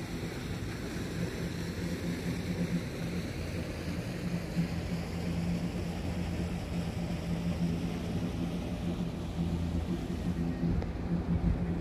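Boat engine running steadily, a low even drone.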